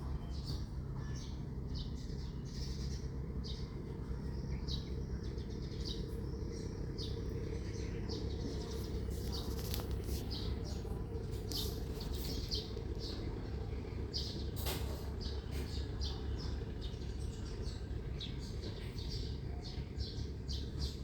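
Small birds chirping, short high calls several times a second, over a steady low hum, with a couple of sharp knocks partway through.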